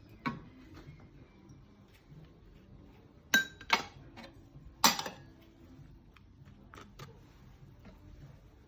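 A handful of sharp clinks and knocks of dishware and utensils being handled while wrapping rice dumplings, the loudest about three and a half and five seconds in, over a faint steady low hum.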